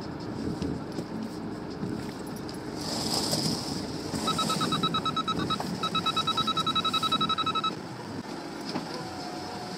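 Rapid electronic beeping inside a van's cabin for about three seconds, in two runs with the second faster, over the low noise of the slowly moving van. The beeping is typical of parking sensors warning of an obstacle close behind.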